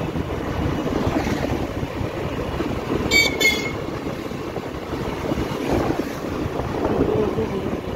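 Wind noise on the microphone with engine and road noise from a two-wheeler riding at about 45 km/h. About three seconds in, a vehicle horn gives two short high toots.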